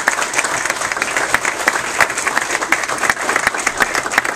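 Audience applauding: many people clapping at once in a dense patter.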